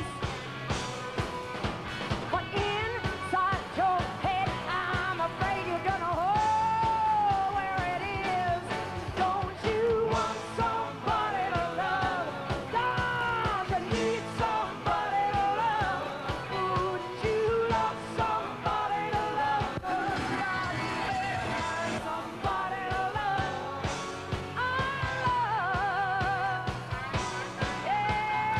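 Live rock band performing: a woman singing lead into a microphone over electric guitars and drums, her long held notes wavering with vibrato.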